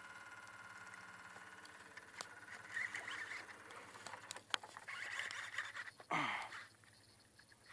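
An electric trolling motor's faint steady whine fades out about two seconds in. Rod-and-reel handling follows, with rustles and a few clicks. About six seconds in, a cast sets the baitcasting reel's spool whirring, its pitch falling quickly as the spool slows.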